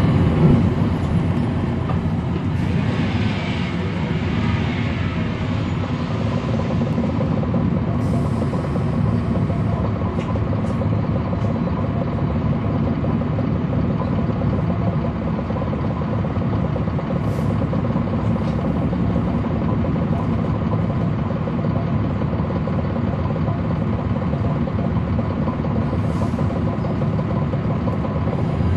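Cummins ISL9 diesel engine of a NABI 40-SFW transit bus running with a steady drone, heard from the rear of the passenger cabin. A hiss of air comes a few seconds in.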